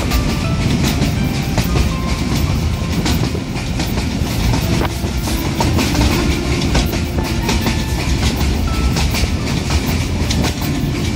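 Pakistan Railways passenger train, the Allama Iqbal Express, running along the line, heard from on board: a steady heavy rumble with constant rattling and clicking from the wheels and carriage.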